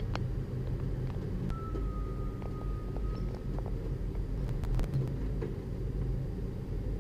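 Steady low rumble of city traffic from the street below, with a few light sharp clicks around the middle as feral pigeons peck at bread held out on the windowsill, and a faint high steady tone for about two seconds before that.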